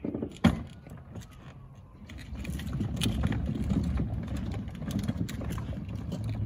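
Scale M4A3E2 Sherman Jumbo tank driving forward on concrete, its tracks clattering with a low rumble that builds from about two seconds in. A sharp knock comes about half a second in.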